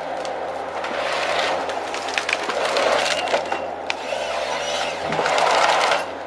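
A heavy tree-cutting machine working: its engine runs steadily under dense cracking and splintering of wood, which swells louder twice as it bites into the tree.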